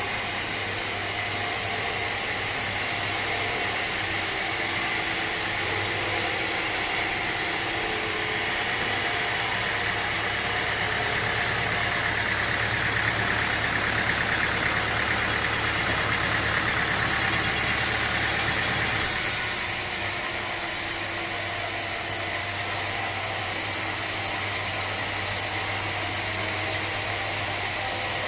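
Sawmill machinery running with a steady engine-like hum, growing louder and fuller for about ten seconds in the middle before settling back.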